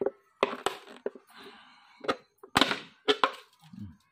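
Handling noises: a string of sharp knocks and clatters, about seven, with a short rustle between them, as bait and a plastic jar are handled.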